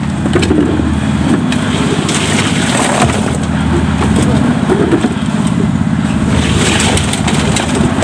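A concrete mixer's engine running steadily, under the knocking and scraping of concrete-filled buckets being handed along, with a few short calls from workers.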